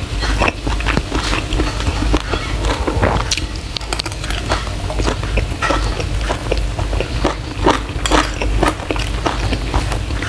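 Close-miked chewing of a mouthful of spicy seafood stir-fried with holy basil and rice, a dense run of irregular mouth clicks.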